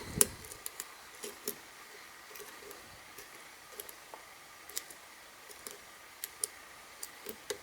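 Lock pick and tension tool working the pins in the keyway of a Brinks stainless steel padlock: faint, irregular small metal clicks and ticks, with a louder click just after the start.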